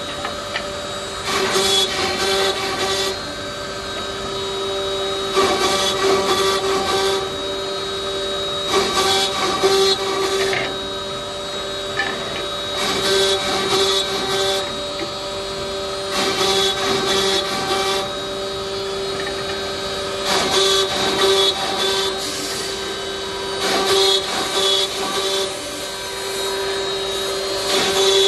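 Seven-spindle CNC mortising machine running, a steady high spindle whine with louder bursts of cutting noise every three to four seconds as the bits cut mortises in wood.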